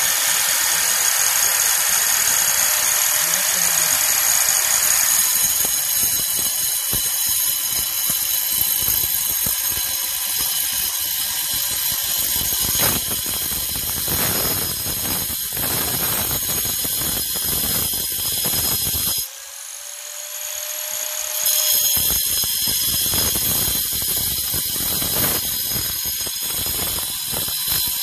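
INGCO grinder with a diamond disc cutting into a stone block: a steady high motor whine over a gritty grinding noise. The sound drops off for about two seconds some two-thirds of the way through, then comes back.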